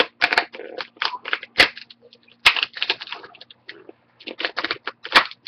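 Plastic screen bezel of an HP Envy 6 laptop being lifted off by fingertips, giving a run of irregular sharp snaps and crackles as its clips and softened adhesive let go. The snapping is the sign that the bezel is coming off.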